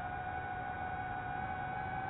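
DJI FPV drone's motors and propellers giving a steady whine in flight, the pitch edging slowly upward, over a rough low rush of air.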